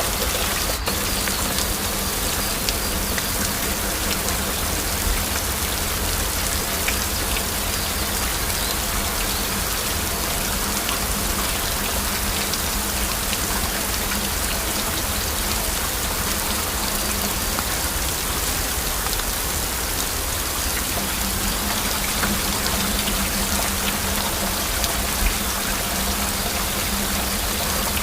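Heavy rain falling steadily: a dense, even patter of drops.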